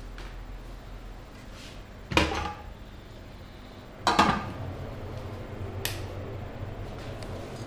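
Metal inner pot of an electric rice cooker set down into the cooker body with a ringing clunk about two seconds in, then the glass lid placed on top with a knock about two seconds later. A short click follows near six seconds as the wall socket's switch is flipped.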